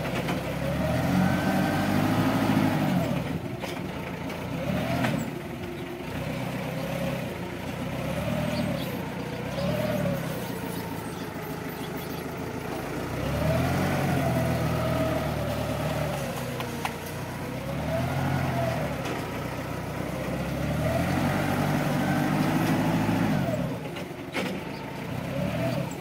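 Linde diesel forklift engine revving up and down over and over as the truck drives and maneuvers, with a whine that rises and falls with the revs. A few brief knocks.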